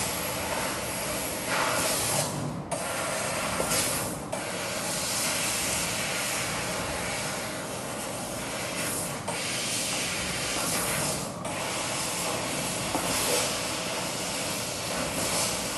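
CNC cutting head cutting through a mild steel sheet: a steady hiss, broken by a few short gaps as the cut stops between paths.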